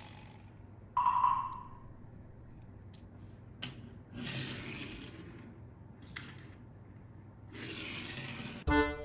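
Dream Tomica Mario Kart 8 Mario toy kart rolling and scraping across a wooden tabletop, with a few light clicks. A short ringing tone sounds about a second in.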